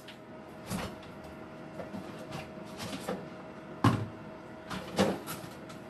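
A few scattered knocks and clunks of containers and a door being handled, the loudest about four seconds in, over the steady hum of an air fryer running.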